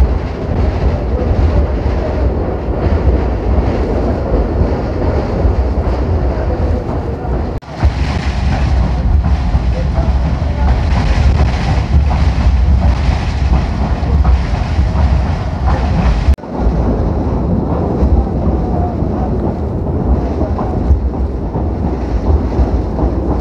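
Chaman Mixed passenger train running along the track, heard from an open carriage: a steady, loud low rumble with the rush of air. The sound drops out briefly twice, about a third and two-thirds of the way through.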